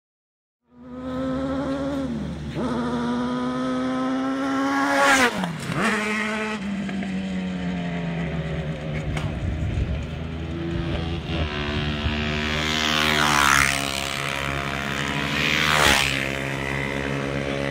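Kart cross buggies racing on a dirt track, their engines revving high with repeated rises and drops in pitch as they shift. Cars pass close about five seconds in and twice more near the end, each with a sharp fall in pitch as it goes by.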